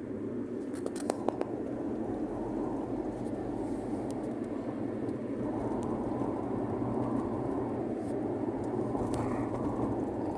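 Steady road, tyre and engine noise heard inside the cabin of a 2008 Ford Fiesta with the 1.6 Rocam four-cylinder, driving downhill on a mountain road. A few light clicks come about a second in.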